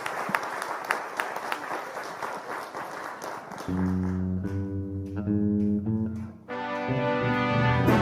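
Applause for the first few seconds, then the band comes in with held keyboard and bass chords that change every second or so: the instrumental opening of a gospel song.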